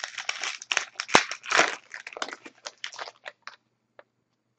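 Plastic-foil trading card pack wrapper being torn open and crinkled in the hands, a dense run of crackling with one sharp click about a second in, dying away to a few light ticks after about three and a half seconds.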